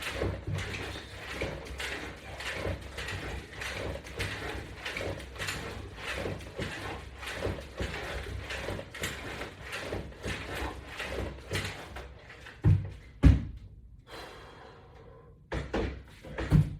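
Resistance-band exercise on a wooden latch-bar rig: quick, even strokes of rubbing and creaking repeat for about twelve seconds, then stop and give way to a few separate loud thumps near the end.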